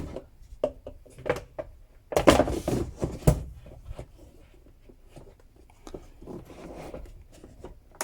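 Handling sounds of an iPad Pro being fitted into a rubberized Logitech Slim Folio Pro keyboard case: rubbing and sharp plastic clicks, with a louder scuffling stretch about two seconds in.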